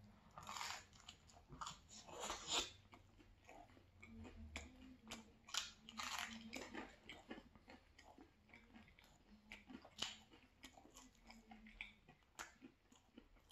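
A person quietly biting into and chewing a slice of pesto pizza, with a run of short crunches as the crust is bitten, the strongest a few seconds apart.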